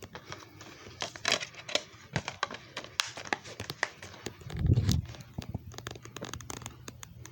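Crinkling and clicking handling noises, like something being handled or unwrapped by hand, with one dull thump about halfway through, over a faint low steady hum.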